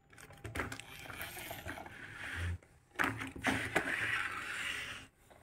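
Large plastic toy motorcycle being handled and moved over a wooden tabletop and plastic track: plastic scraping, rolling and clicking in two stretches of about two seconds each.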